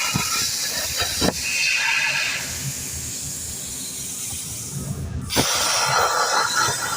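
CNC laser cutting machine cutting aluminium: a steady hiss that drops quieter in the middle and surges back suddenly about five seconds in, with a few sharp knocks.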